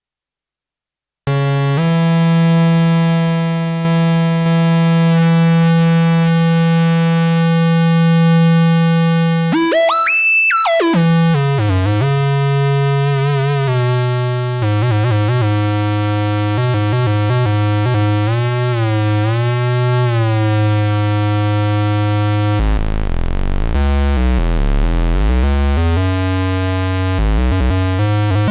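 Home-built Ad-vantage 03M analogue synthesizer playing a held low note rich in overtones, starting after about a second of silence. Around the middle it sweeps sharply up in pitch and back. It then holds notes with slow pitch wobbles and ends in a noisy, sweeping low growl.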